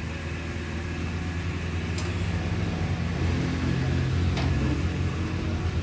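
A steady low mechanical hum of running machinery, slowly getting a little louder, with two faint clicks.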